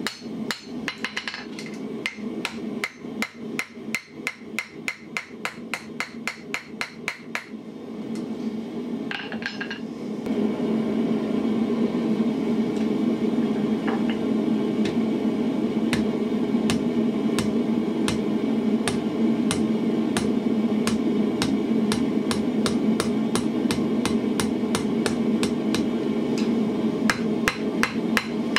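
Blacksmith's hammer striking hot iron on an anvil in quick, even blows, about three a second, as a forged bottle-opener ring is shaped over the horn and then on the face. The blows stop briefly about eight seconds in; when they resume a steady low rushing noise runs beneath them.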